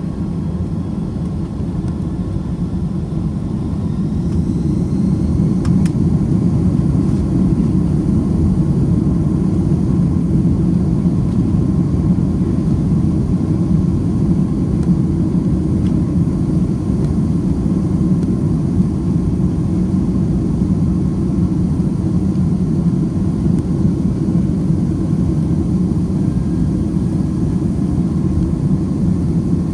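Boeing 757-200 jet engines spooling up to takeoff power and the takeoff roll, heard inside the cabin: a deep steady rumble that grows louder over the first few seconds, with a faint rising whine, then holds steady.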